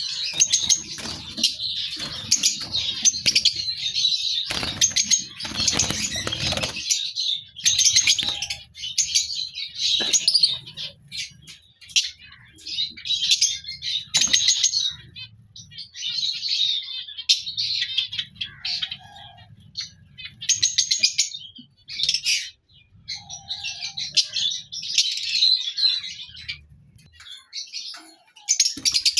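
A group of lovebirds chattering and chirping in quick high bursts, with a louder flurry of wing flapping about five to six seconds in.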